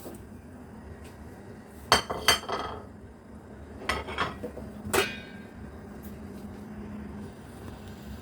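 Clinks and knocks of a metal soup pot and serving dish as apple and pear pieces are put into the pot: about five knocks, the one about five seconds in ringing briefly.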